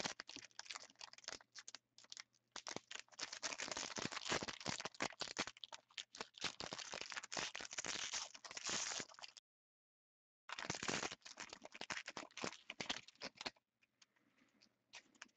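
Foil trading-card pack wrapper being torn and crinkled as the pack is opened, a dense crackling rustle for about nine seconds. It breaks off for about a second, resumes, and dies away to faint near the end.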